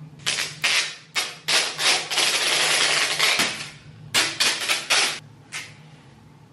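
Clear tape being pulled off the roll in a run of short rips, then one long steady pull of about a second and a half, then a few more quick rips and a last one.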